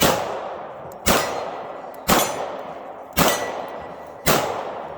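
Five gunshots fired at a steady pace, about one a second, each followed by a short echo that fades before the next.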